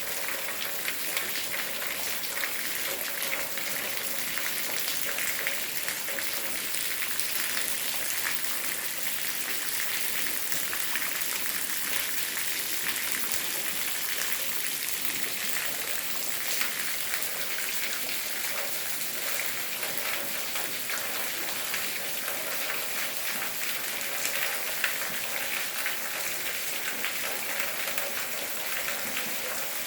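Steady rain falling, a dense, even patter of drops on a hard surface with a high hiss.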